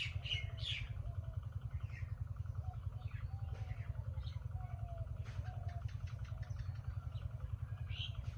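Village ambience: small birds chirping now and then over a steady low rumble with a fast, even pulse, like a motor running.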